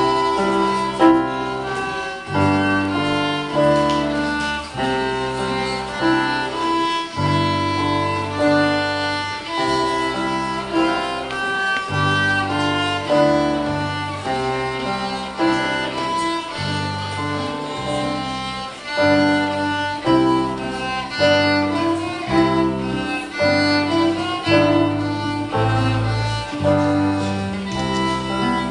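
Live small-ensemble music: a solo violin plays a melody over an electric bass guitar line and piano, starting sharply at the beginning.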